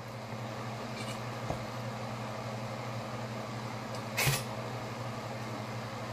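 A man drinks from a plastic water bottle against a steady low electrical hum. There is a faint click about a second and a half in, and a short, sharper noise about four seconds in while the bottle is tipped up.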